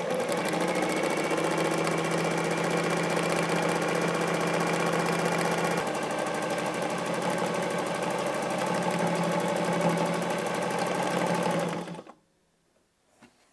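Domestic sewing machine running steadily at speed while stitching, its tone shifting slightly about six seconds in, then stopping abruptly about twelve seconds in.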